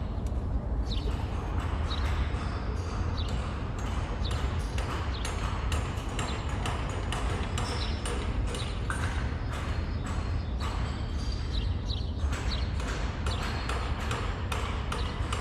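Floor tiles being changed during renovation work: many sharp, irregular knocks and ringing clinks of tile and tools, several a second, over a steady low rumble.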